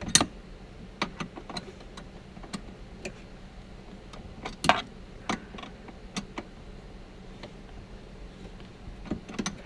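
Scattered metallic clicks and knocks as the seat belt's lower anchor and its hardware are handled and swivelled back and forth, with two louder knocks near the start and about halfway through.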